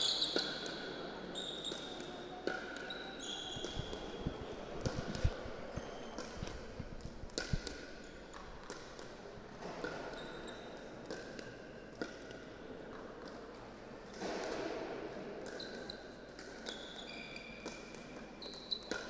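Pickleball doubles rally: sharp, irregularly spaced pops of paddles striking the plastic ball, with short high squeaks of shoes on the court floor and a low murmur of spectators.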